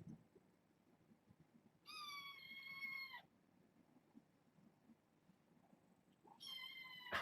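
A kitten meowing twice, two high, clear meows each about a second long that fall slightly in pitch, with a short knock at the end of the second.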